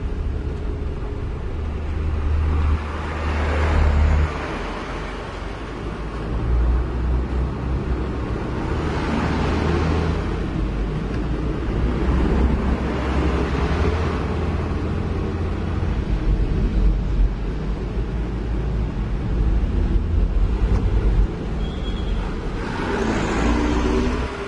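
Heavy trucks rumbling along a dirt road, heard from inside a moving vehicle's cab: a steady deep engine-and-tyre rumble, swelling several times as oncoming trucks pass. Near the end a passing truck adds a brief higher whine.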